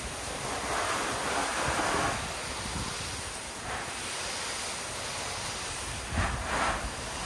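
Water spraying from a soft-wash hose and spray gun onto house siding, a steady rushing spray that swells now and then, louder briefly twice near the end.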